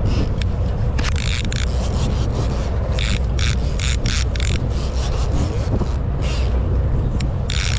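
Conventional saltwater fishing reel being cranked in against a fighting fish, its gears giving short repeated rasping whirs, about three a second from about three seconds in, over a steady low rumble.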